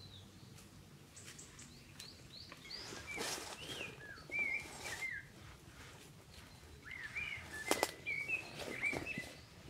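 Boots stepping on dry leaf litter in uneven crunches, the sharpest one late on. Meanwhile a songbird sings two runs of short, rising-and-falling whistled phrases.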